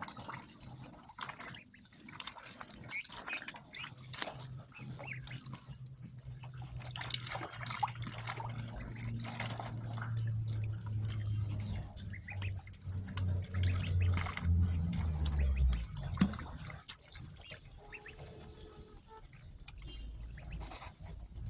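Ducklings splashing and paddling in shallow water, with scattered drips and small splashes. A low hum runs underneath, loudest in the middle and dropping in pitch about three quarters of the way through.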